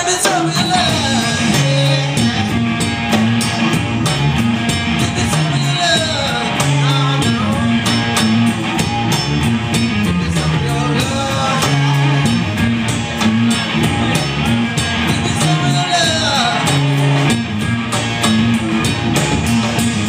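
Live rock band playing: electric guitar, electric bass and drum kit, with a steady drumbeat and cymbals.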